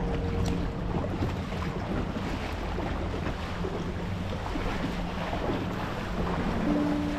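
Water splashing and lapping around a kayak on the river, with wind rumbling on the microphone. Soft sustained notes of background music near the start and again near the end.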